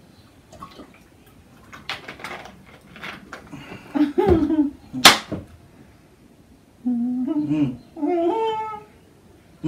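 A plastic soft-drink bottle set down with a single sharp knock about five seconds in, between muffled, pitched humming sounds from people holding water in their mouths, one just before the knock and two longer ones near the end.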